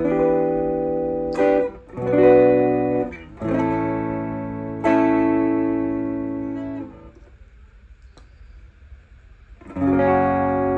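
Jackson DK2S electric guitar played clean through a Fender Princeton-style valve amp. Six strummed chords, each left to ring out and fade. After the fifth there is a pause of a couple of seconds with faint amp hiss before the last chord.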